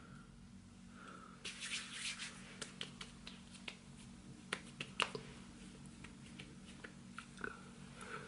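Faint pats, taps and light rubbing of hands working serum into the skin of the face: a brief run of soft strokes, then scattered small sticky clicks.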